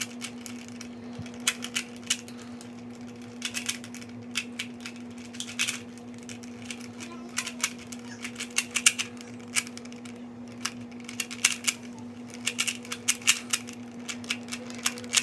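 Plastic Rubik's Cube being turned rapidly by hand during a speed-solve: quick, irregular runs of clicking and clacking as the layers snap round, with brief pauses between bursts. A steady low hum runs underneath.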